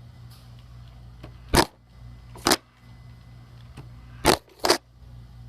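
Four sharp knocks in two pairs, the second pair close together, with a few faint ticks, over a steady low hum.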